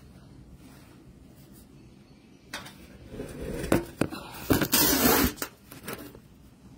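Handling noise from the recording phone being picked up and moved: sharp knocks and rubbing against the microphone, starting about two and a half seconds in and loudest a little before five seconds, then settling.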